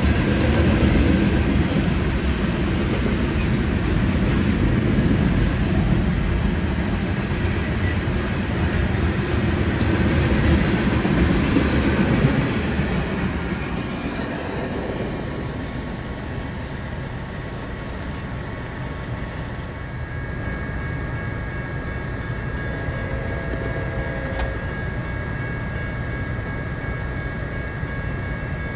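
BNSF mixed freight train rolling past, heard from inside a car: a steady rumble of freight cars on the rails that fades out about halfway through as the train clears. Near the end a quieter steady high ringing tone comes in.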